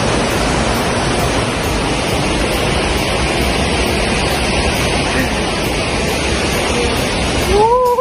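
Steady, loud rush of a waterfall's falling water. It cuts off suddenly near the end, and a person gives a short call that rises and then falls in pitch.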